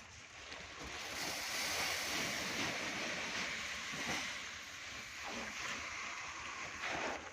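Granules poured from a sack into a seed drill's hopper: a steady rushing hiss that starts about a second in and stops abruptly near the end.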